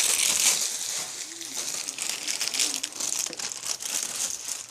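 Thin plastic crinkling and rustling as card sleeves are handled, louder in the first second and then a little fainter.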